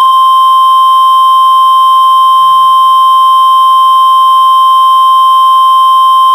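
Emergency alert attention tone: a single loud, steady electronic tone held at one unchanging pitch without a break.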